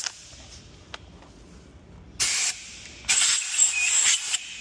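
Power drill with a 6 mm bit drilling out a broken bolt in a forklift tine, run in two short bursts: a brief one about two seconds in, then a longer one of about a second and a half with a thin high whine.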